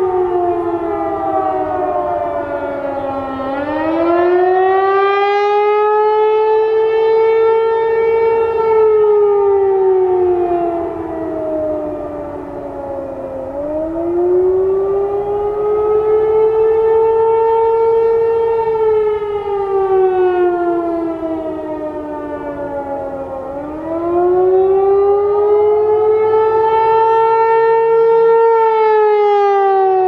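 Federal Signal 508 rotating outdoor warning siren sounding a wail for its test. The pitch winds up, holds, then slowly falls, about once every ten seconds. The sound swells and fades as the rotating head turns, and it echoes.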